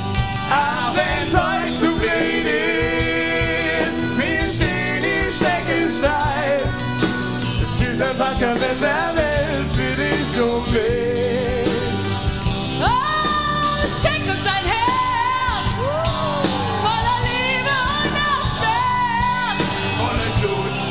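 Live rock band playing: a steady drum beat, electric guitars and singing with vibrato, with bending, sliding notes in the second half.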